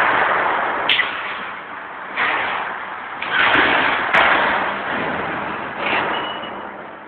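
Rushing noise of a vehicle driving fast across a hall floor, surging four or five times and gradually dying down, with a few sharp knocks and bangs from going over debris.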